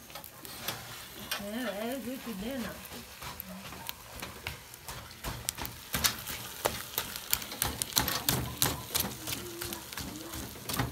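Steel ladle stirring thick semolina halwa in a steel pot, scraping and clicking against the metal, with a dense run of scrapes from about six seconds in, over a light sizzle of the mixture frying.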